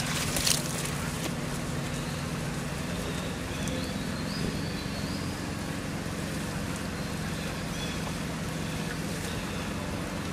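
Water splashing out of a plastic tub as a macaque leaps out of it, two quick splashes right at the start. After that a steady low hum, like a motor running, fills the rest.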